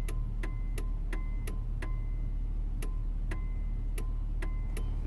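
Truck turn-signal clicking with the blinkers switched off and not flashing: an uneven run of clicks, a couple a second, with the engine idling underneath. The owner suspects dirty electrical connections at the multi-switch.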